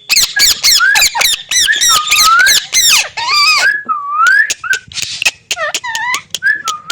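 Pet parrot calling: a fast run of short, shrill chirps for about three seconds, then a string of longer whistled calls that slide up and down in pitch.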